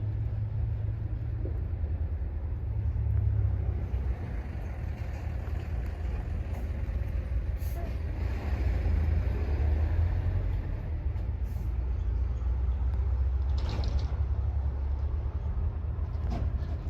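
Engine of a rice combine harvester running steadily, a low rumble, with a few short knocks over it.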